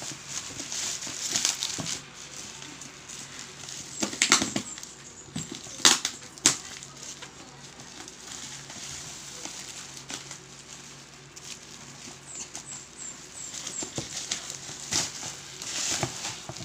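Plastic bubble wrap rustling and crinkling as it is snipped with scissors and pulled off a cardboard box, with a few sharp cracks about four and six seconds in.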